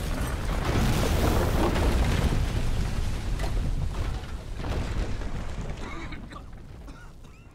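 A building front collapsing, as a film sound effect: a loud, rumbling crash of falling masonry and debris that carries on for several seconds and then gradually dies away. Coughing is heard near the end.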